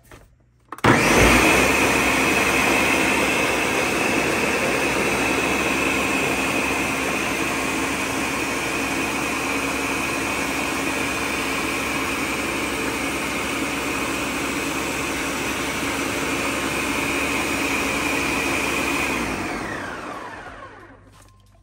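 Countertop blender switched on about a second in and running steadily, blending a liquid mix of milk, rum and soaked prunes; near the end it is switched off and winds down with a falling whine.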